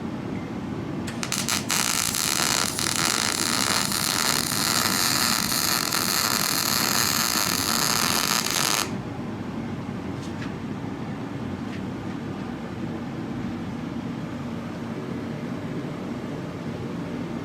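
Welding arc crackling steadily for about eight seconds while a V-band flange is welded onto a turbo hot side; it starts about a second in and cuts off suddenly. A low steady hum runs underneath.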